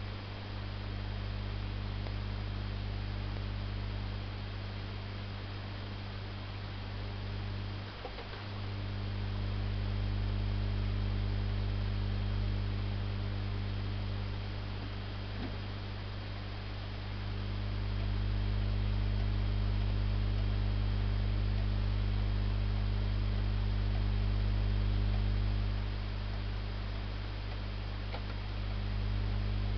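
Steady low electrical mains hum. It swells a little louder for stretches in the middle.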